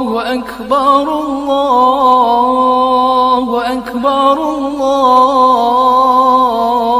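A single voice chanting in long, held notes with small wavering ornaments, without a break.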